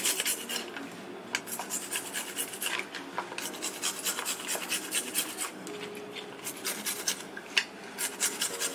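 Garlic being grated on a flat metal hand grater: a steady run of short rasping strokes, about two or three a second.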